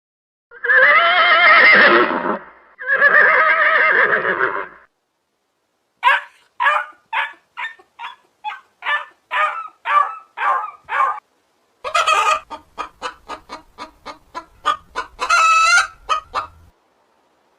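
Animal calls in three groups: two long cries about two seconds each, then a run of short quick notes about two or three a second, then fast pulses ending in a long cry.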